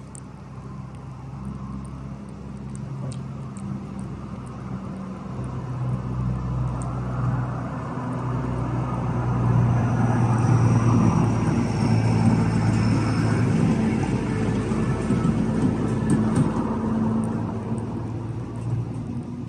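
A motor vehicle's engine running with a steady low hum that swells louder through the middle and eases off near the end.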